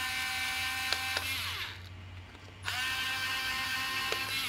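Dremel cordless electric screwdriver running as it backs out the battery screws of a gas detector. It runs, winds down with a falling pitch about a second and a half in, then starts again about a second later and runs until near the end.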